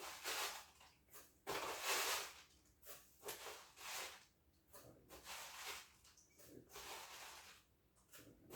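Spoonfuls of hemp seeds being scooped and tipped into a container, a short rustling pour about once a second.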